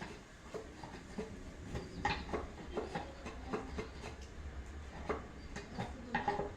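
Faint, irregular taps and clicks of wood and tools being handled on a workbench, over a low steady hum.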